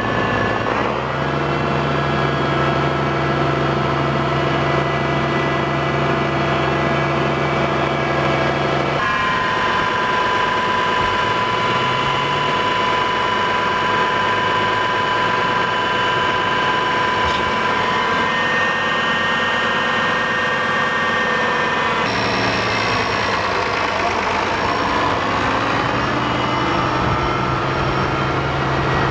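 International Harvester 1086 tractor's turbocharged six-cylinder diesel engine running steadily at low speed as the tractor is driven. The engine note shifts abruptly about a second in, about 9 seconds in and about 22 seconds in.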